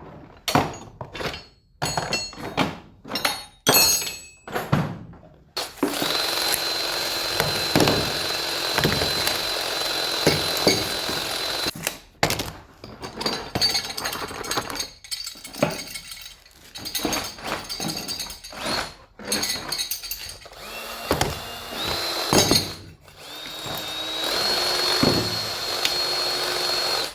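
Power drill running in short bursts at first, then in a long steady run, and later in uneven spurts. Near the end its motor pitch steps up several times as it speeds up.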